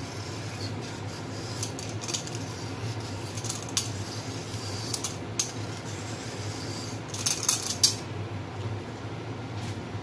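Y-shaped vegetable peeler scraping strips of skin off a cucumber: a run of short rasping strokes, several in quick succession near the end, over a steady low hum.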